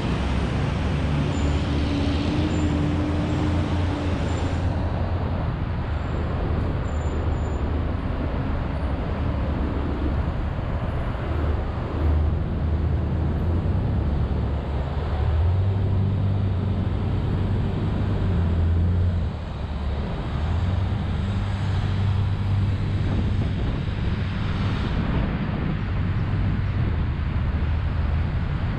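Steady road traffic noise with a low engine rumble that swells and eases as vehicles pass.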